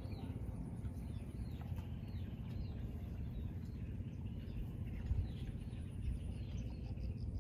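Small birds chirping again and again in short high calls, over a steady low rumble.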